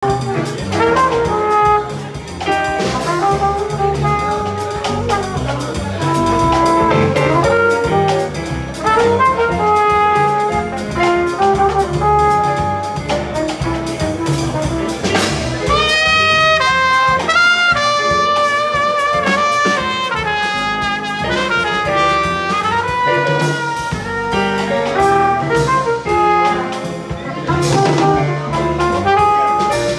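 Live small-group jazz: trumpet lines, with fast runs in the middle, over a walking double bass and drums.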